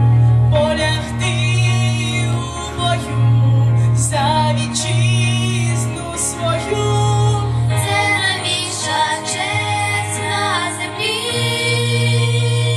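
A girl sings solo through a microphone and PA over a backing track with a steady low bass line. Her held notes waver with vibrato.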